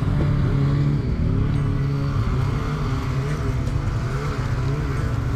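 Two-stroke snowmobile engine, a 2023 Polaris 850 Switchback Assault, running steadily with its pitch wavering slightly.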